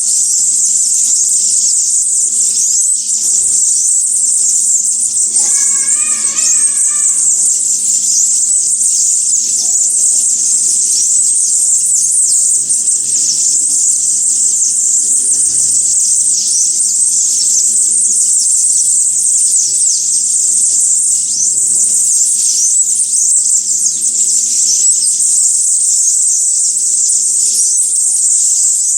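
A dense, unbroken chorus of high, thin chirps and calls from many small birds. A short warbling call stands out about six seconds in. A faint steady low hum runs underneath.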